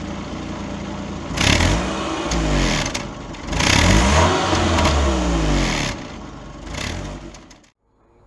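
Car engine idling steadily, then revved hard several times, its pitch climbing and falling again with each rev, before fading out near the end.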